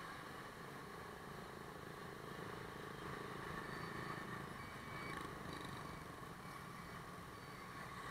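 Motorbike engine running steadily while riding.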